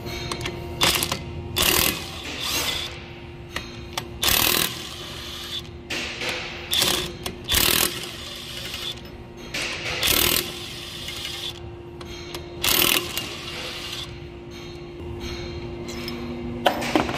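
Impact wrench hammering in a string of short bursts, each under a second, as it runs the fasteners out of a van's rear axle hub flange.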